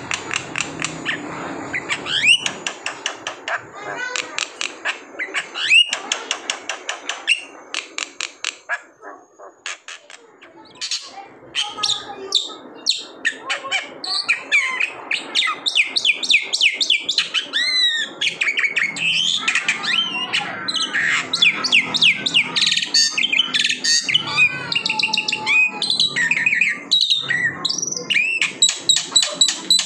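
Black-winged myna (jalak putih) singing a loud, varied song: a few sharp rising whistles at first, then fast rattling runs of clicks, then a dense stream of mixed whistles and harsh chattering notes.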